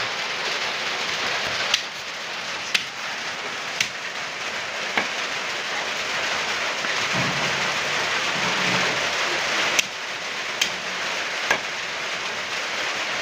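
A large knife chopping chicken on a wooden block: seven sharp chops, four in the first five seconds and three more near the end, over a steady hiss.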